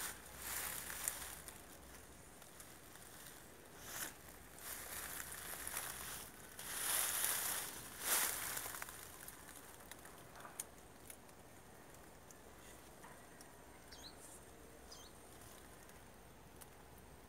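Leaves and stems rustling and brushing as someone moves through leafy shrubs, in several short bursts over the first half, then settling to quiet outdoor background.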